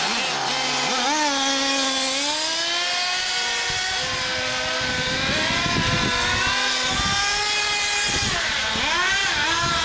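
Small nitro glow engines of HPI MT2 radio-controlled monster trucks running at high revs, a high whine that rises and falls as the trucks accelerate and ease off, with more than one engine heard at once near the end.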